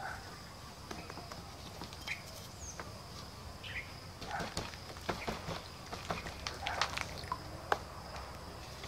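A steady high insect drone with a few short bird chirps, over scattered light clicks and knocks from hand work on the brick roof, the sharpest knock near the end.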